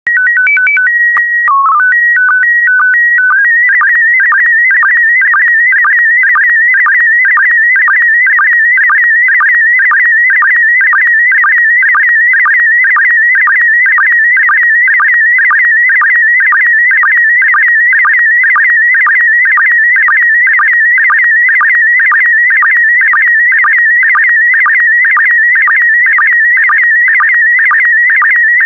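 Slow-scan TV transmission in PD120 mode. It opens with the calibration header, a few held tones and then quick steps between two pitches. About three and a half seconds in it becomes the image signal: a warbling, beeping tone with a short lower sync blip about twice a second.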